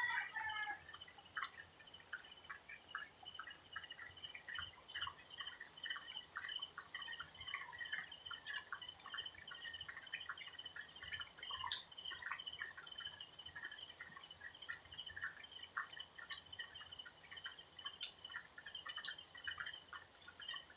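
Night insect chorus in vegetation: a steady, fast-pulsing high trill throughout, with many short, scattered high ticks and plinks over it.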